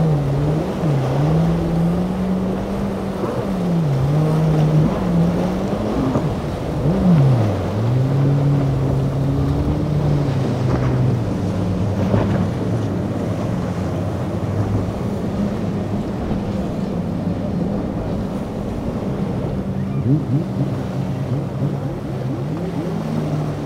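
Yellowfin center console's quad Mercury 350 outboards running through rough inlet chop. The engine note dips and climbs several times in the first half as the throttle is worked over the waves, then holds steadier, over splashing wash and wind on the microphone.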